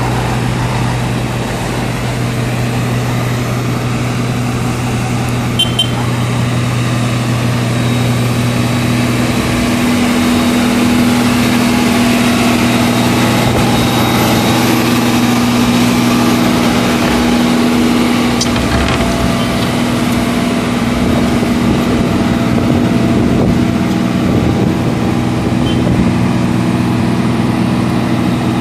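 Engine of road-repair machinery running steadily, its note shifting about ten seconds in.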